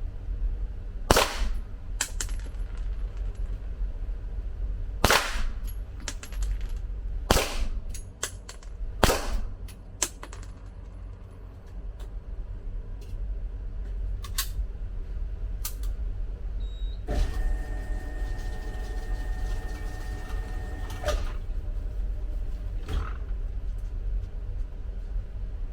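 Four loud gunshots a few seconds apart in the first ten seconds, with fainter clicks and smaller reports between them. Later a steady mechanical hum runs for about four seconds.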